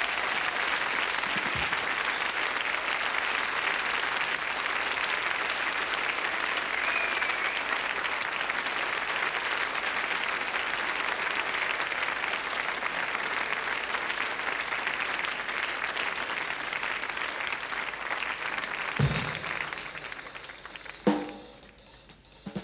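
Audience applauding steadily, dying away after about nineteen seconds, with two single drum hits near the end as the band readies the next tune.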